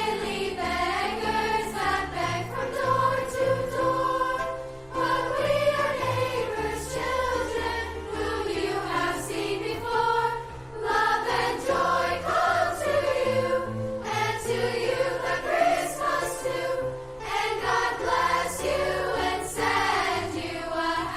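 A choir singing, the voices moving together in continuous sung phrases with brief breaths between them.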